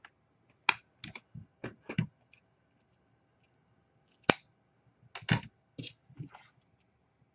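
Large scissors snipping in short, sharp cuts, a quick run of snips about a second in and another run from about four seconds in, as lace edging is trimmed.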